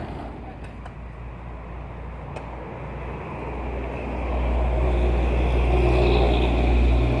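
A vehicle engine runs with a low steady drone, and it grows louder about halfway through.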